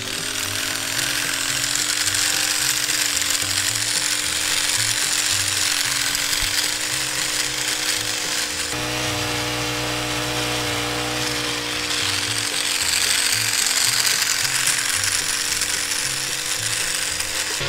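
Pole hedge trimmer running steadily as its reciprocating blade cuts along the top of a leafy hedge. Background music plays with it.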